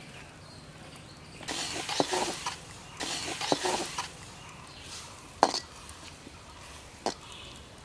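A perforated metal ladle scraping and clinking against an iron wok as green banana pieces are stirred in hot oil. There are two stretches of scraping, then a couple of sharp single clinks near the end.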